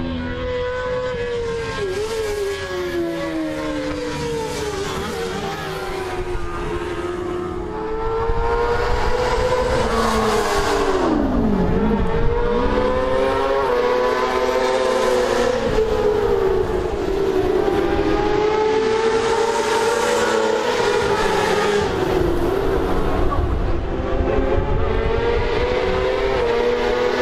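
Racing sidecar engines running at high revs on the circuit. The pitch climbs through the gears and drops again and again. About eleven seconds in, one passes close by and its note falls sharply. The sound is louder from about eight seconds in.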